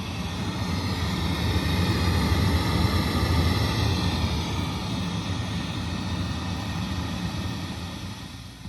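Dr Z Stang Ray tube guitar amplifier putting out a loud, rushing hiss like pink noise, with a steady low hum under it. It swells over the first couple of seconds and fades near the end. This is an intermittent fault: it comes on at random and stops when any of the amp's three knobs is turned.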